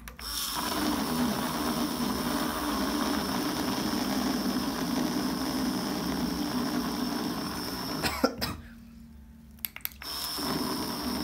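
Portable USB-rechargeable blender bottle running, its small blade whirring through an apple-and-milk shake: a steady whir with a thin high whine, on a battery the owner says is not fully charged. It cuts off with a click about eight seconds in and is started again near the end.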